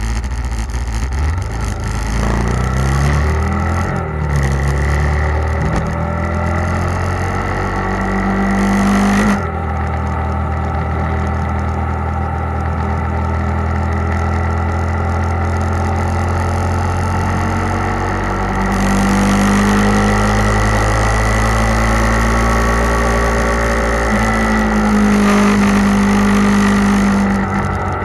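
Motorcycle engine running under way. Its pitch climbs in steps over the first few seconds with the gear changes, changes abruptly about nine seconds in, then holds a steady cruise, and rises again for the last third.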